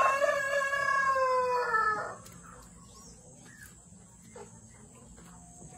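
A rooster crowing: one long crow that drops in pitch at the end and stops about two seconds in.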